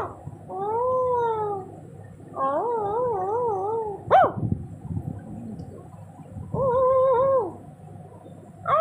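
Dogs vocalising while play-fighting: drawn-out, wavering howl-like whines, one rising and falling, one wobbling up and down, with a short sharp yelp about four seconds in and another call near the end.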